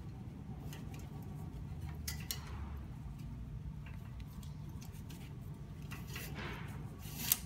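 Faint scraping and small clicks of a PPA-coated metal strapping band being fed through the slots of a steel cable ladder and through its buckle, over a low steady hum. A sharper click comes near the end.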